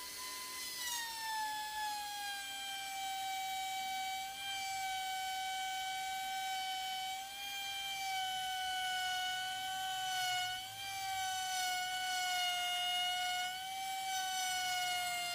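Woodworking power tool running with a steady high whine and a stack of overtones. The pitch drops about a second in, then holds with slight wavering.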